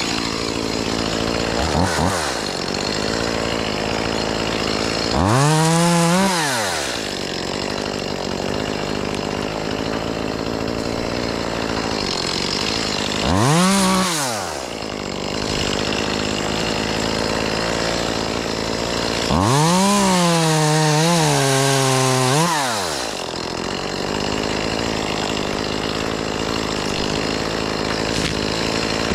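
Chainsaw running, revved up to full throttle and back down three times, the last time held high for a few seconds, with an engine running steadily underneath.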